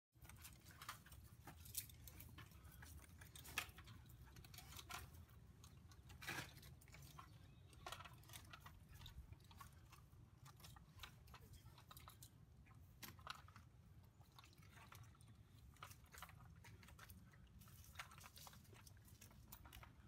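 Near silence: a faint low rumble with scattered light clicks and crackles, a few louder ones in the first six seconds.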